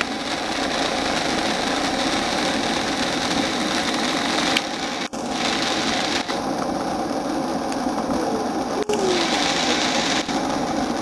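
Ground fountain firework spraying sparks, a loud steady hiss that runs on without a break apart from two brief dropouts, about five and nine seconds in.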